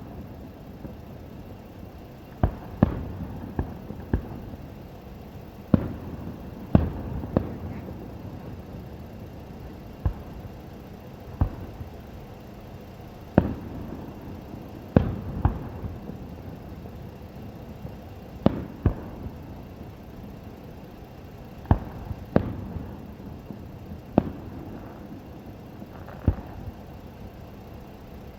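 Fireworks display: sharp bangs at irregular intervals, sometimes two close together, a few followed by a short rumbling echo.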